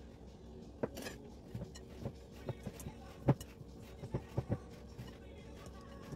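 Silicone spatula stirring thick chocolate chip cookie dough in a glass mixing bowl, giving irregular short knocks and clinks against the glass, the loudest a little past three seconds in.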